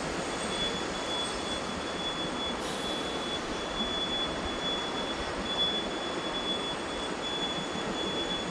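Jet airliner engines running: a steady rushing noise with a thin high whine over it.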